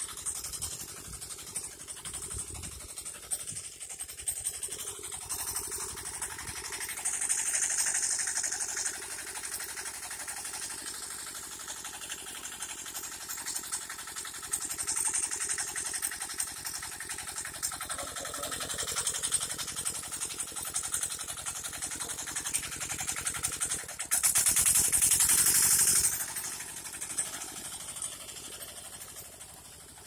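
Mini tractor engine running steadily under load while ploughing, with a fast even firing beat. It swells louder a few times, most strongly for about two seconds some three-quarters of the way through.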